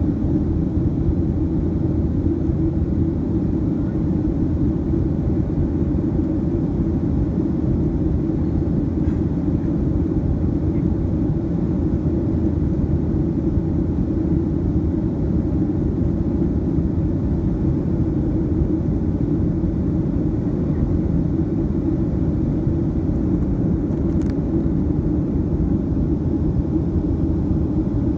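Steady cabin noise inside a Boeing 737-700 climbing after takeoff: the low drone of its CFM56-7B jet engines mixed with the rush of airflow, heavy in the low end and unchanging.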